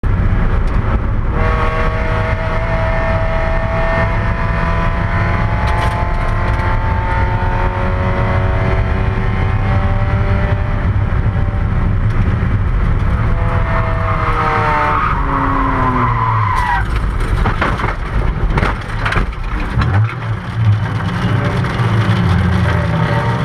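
Spec Miata race car's four-cylinder engine heard from inside the cockpit, pulling hard with its pitch rising and falling through the gears. About two-thirds of the way in the revs drop away under a skidding hiss, then a run of sharp knocks and bangs as the car goes off into a crash. Near the end the engine is left running at low revs.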